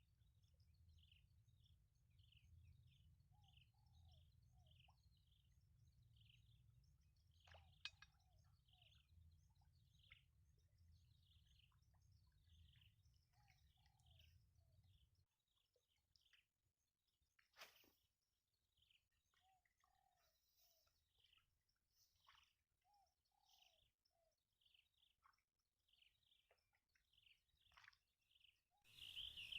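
Faint birdsong: short falling chirps repeated about twice a second, with small groups of lower chirps now and then. A low hum underneath stops about halfway through, and there are a couple of faint clicks.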